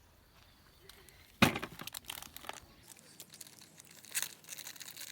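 Packaging torn open and crinkled by hand: a sharp rip about a second and a half in, then repeated bursts of crinkling.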